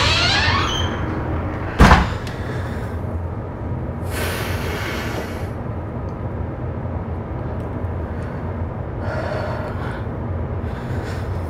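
Steady low rumble of a ferry's engines heard inside a washroom, with one sharp knock like a door banging about two seconds in. Two short hissing noises come later, one around the middle and one near the end.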